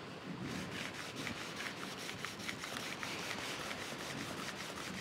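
Steel edge of a card scraper rubbed back and forth on a 1000-grit diamond sharpening stone wet with honing fluid, in a run of short, quick, even strokes. This is the edge being polished smooth, flat and square before it is burnished.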